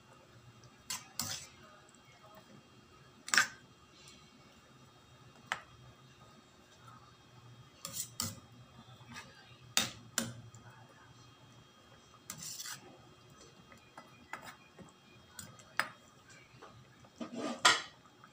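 Steel ladle stirring a thick cream stew in a stainless steel pan: scattered clinks and scrapes of metal on the pan, a second or more apart, with a longer, louder scrape near the end.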